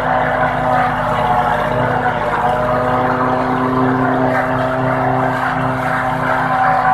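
Tractor-driven fodder chopper (toka machine) running steadily as maize stalks are fed into it, with the tractor's engine working under the load. The machine's hum holds several steady tones that shift slightly in pitch.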